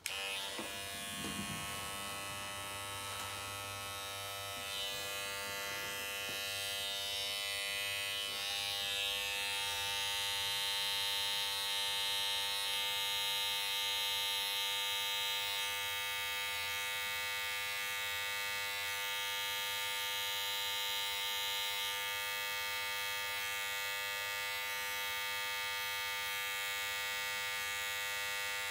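Corded T-blade hair trimmer buzzing steadily while it edges a child's front hairline.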